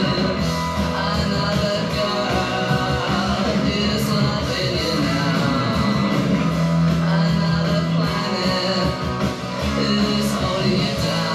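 Background music: a song with guitar.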